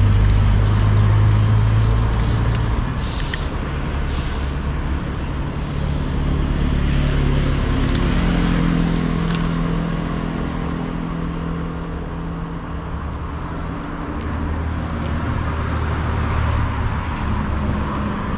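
Low, steady rumble of a motor vehicle engine running, its tone drifting slowly in pitch. A few short crunches of a cat chewing dry kibble close by come in the first few seconds.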